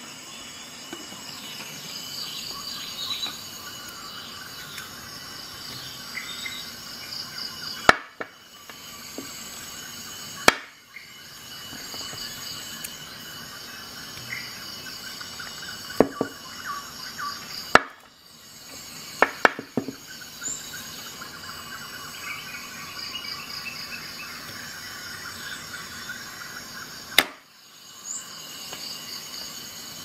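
Victorinox Rescue Tool pocket knife being handled, its blades snapping open and shut with several sharp clicks spread through, over a steady high-pitched chirring background.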